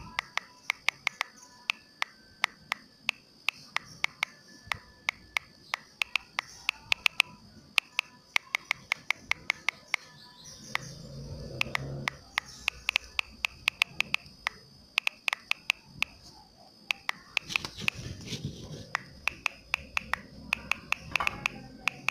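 Fingers tapping out text on a phone's touchscreen keyboard: quick, irregular clicks, several a second, pausing now and then. A duller low murmur rises twice, about halfway and near the end.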